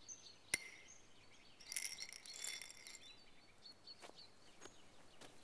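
Quiet woodland ambience with birds chirping faintly. Over it are close handling sounds from a backpack and glass jars: a sharp click about half a second in, a rustling, clinking stretch around two seconds in, and a few lighter clicks later.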